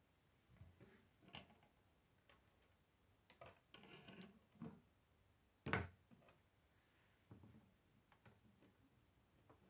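Plastic K'nex pieces clicking and knocking against each other and a wooden tabletop as a fan wheel is handled and fitted onto its frame. The clicks are scattered and light, with one sharper knock about six seconds in.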